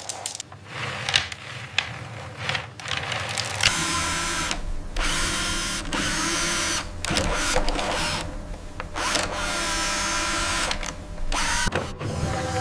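Drilling machinery: a few sharp knocks, then a power-driven drill running in repeated spells of a second or two with short breaks.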